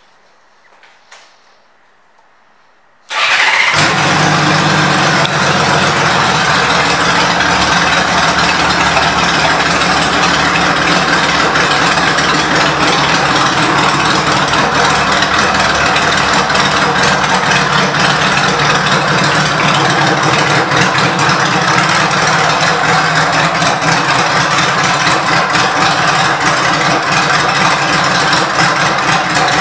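A 1997 Honda Valkyrie Tourer's flat-six engine, fitted with an aftermarket exhaust, starts suddenly about three seconds in and then idles steadily.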